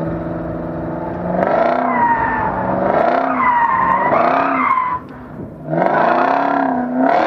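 The FPV GT's supercharged 5.0-litre Boss 335 V8 revving hard and easing off over and over as it is driven through a tight cone course. The engine's pitch climbs and falls several times, drops away briefly about five seconds in, then climbs hard again. A high squeal rises and falls over the engine during the hardest pulls.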